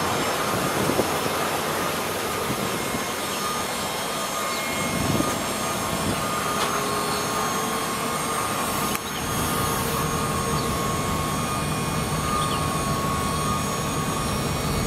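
Chevrolet Silverado 3500HD dump truck running while its hydraulic dump bed goes down, a steady mechanical drone with a thin whine. The low rumble grows heavier a little past halfway.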